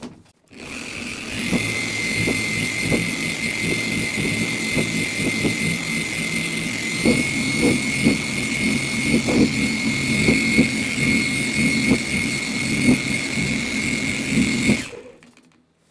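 Electric car-polishing machine running under load, spinning a pad of one-step cutting compound across a paint panel on the first polishing pass. A steady high whine that steps up slightly about halfway, over an uneven low rumble; it starts about half a second in and stops about a second before the end.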